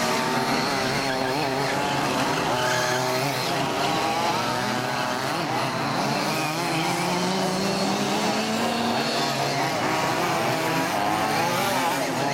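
Several 1/5-scale RC Baja buggies racing, their small two-stroke petrol engines buzzing and revving up and down in overlapping pitches as they throttle on and off around the track.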